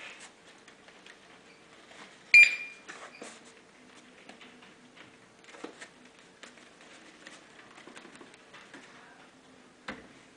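Handling noise from a desktop ID scanner terminal being tipped up and turned by hand: scattered clicks and rubs from its housing, with one loud sharp click that rings briefly a couple of seconds in, and a knock near the end as it is set back down on the table. A faint steady hum runs underneath.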